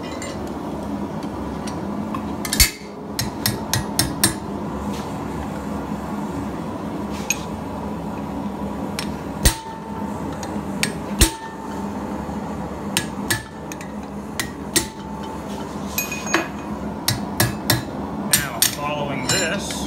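Hammer striking a hand-held punch into red-hot steel on an anvil, punching in ear detail. The blows come irregularly, singly and in short runs, and grow more frequent near the end, over a steady background hum.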